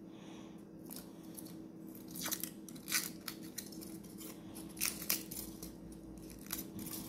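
Aluminium foil wrapper being peeled off a chocolate egg, crinkling in short irregular crackles, over a faint steady low hum.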